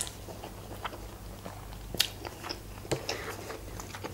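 A person eating instant noodles: slurping them in and chewing, with a few sharp mouth clicks, the loudest about two seconds in.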